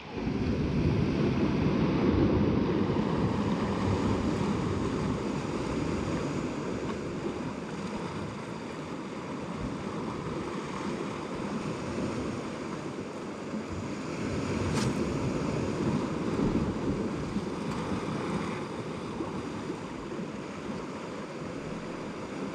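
Sea waves washing in and drawing back, the rush swelling louder and easing off, with wind buffeting the microphone. A single sharp click sounds about fifteen seconds in.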